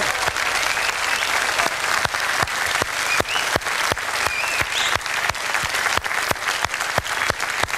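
Studio audience and dancers applauding: a dense patter of many hands clapping.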